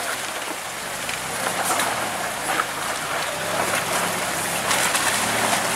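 Off-road truck crawling up a rocky trail: engine running under a steady noise of tyres grinding over loose rock, with scattered sharp clicks of stones. It grows louder as the truck comes closer.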